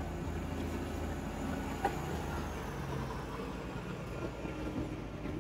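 Diesel multiple-unit train rolling past at close range: a steady low engine drone with a single sharp click about two seconds in.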